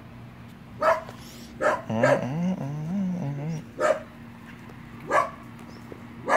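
Dachshund barking repeatedly, about seven short, sharp barks at irregular intervals, with a wavering whine for a second or two in the middle.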